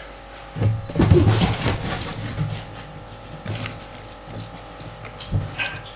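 Hands rummaging through dry, crinkly material in a plastic tub: rustling and crackling, loudest about a second in, with scattered small clicks and knocks.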